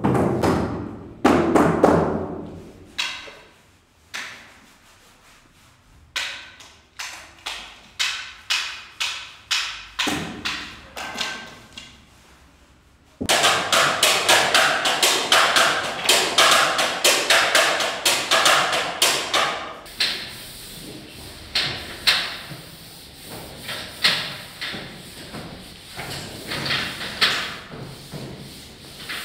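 Improvised percussion made of irregular struck hits. A spaced run comes at about two strikes a second, then a dense, bright stretch of rapid strikes starts suddenly about halfway through and thins out to scattered hits near the end.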